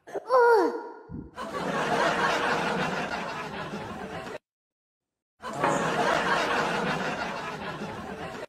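Canned audience-laughter sound effect played twice, each time for about three seconds and cut off abruptly, with a short falling pitch glide at the very start.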